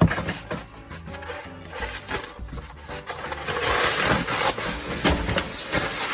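Rubbing and scrubbing at sticky residue on a laptop part with foam cleaner, a rasping noise that grows louder about three and a half seconds in. Faint background music underneath.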